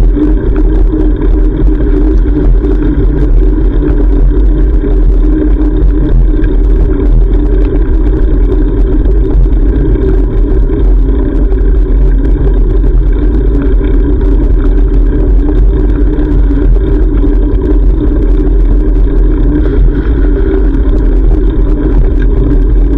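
Loud, steady low rumble picked up by a GoPro on a moving bicycle, unbroken throughout.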